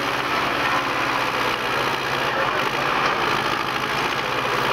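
Tractor diesel engine running steadily under heavy pulling load, hard enough to lift the tractor's front wheels off the ground.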